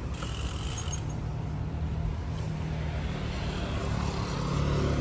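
A motor vehicle's engine running steadily on the street, slowly growing louder, with a short hiss in the first second.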